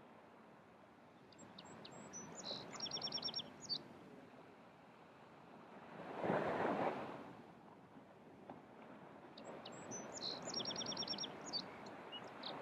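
Surf washing on a sandy beach, with one wave breaking louder about halfway through. A small songbird sings the same short song twice, a few separate high notes and then a quick trill of repeated notes.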